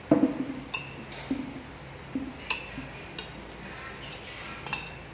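Metal spoons knocking and clinking against ceramic plates as people eat, with a few sharp clinks that ring briefly among duller knocks. The loudest knock comes right at the start.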